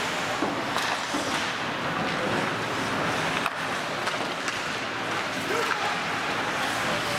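Ice hockey play in an echoing arena: skates scraping on the ice under a steady wash of noise, with a few sharp clacks of sticks or puck, and indistinct voices of players and spectators.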